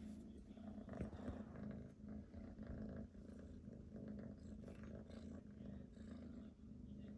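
Domestic cat purring steadily in a low, continuous rumble, with a few faint soft clicks.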